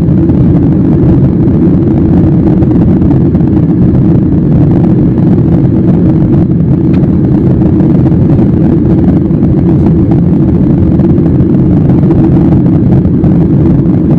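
Steady, loud drone of a jet airliner in flight, its engine and airflow noise heard from inside the cabin, unchanging throughout.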